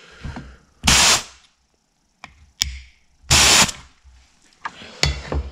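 Pliers working a loosened brake caliper piston out of its bore, with sharp metal clicks and two short, loud bursts of hiss about a second in and again about three and a half seconds in.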